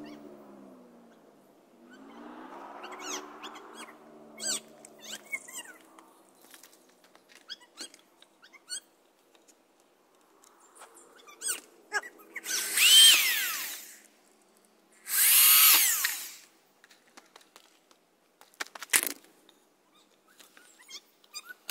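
Power drill running in two loud bursts about twelve and fifteen seconds in, each about a second and a half, the first with a falling pitch, then a short burst near the end. The drill is driving screws into the 1x4 pine boards of the frame, with scattered knocks of the boards being handled before it.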